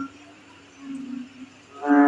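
Frogs calling at night: short, low, droning croaks rich in overtones, a quieter one about a second in and a loud one near the end, over a faint steady chirring of crickets.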